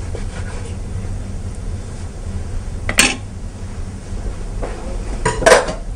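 Kitchen knife slicing grilled chicken breast on a wooden cutting board, the blade knocking sharply on the board once about three seconds in and again in a short cluster near the end. A steady low hum lies underneath.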